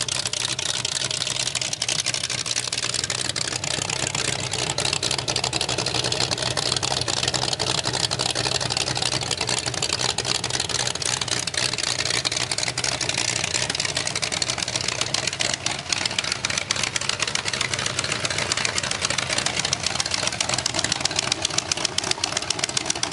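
A 1970 Chevrolet 400 small-block V8 with 041 heads, on a run stand, running steadily at idle through short open exhaust pipes.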